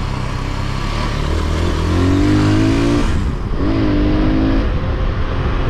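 Victory MRX Arizona 200 motorcycle engine accelerating, its pitch climbing. It dips briefly about three seconds in, then climbs again. Wind and road noise rush underneath.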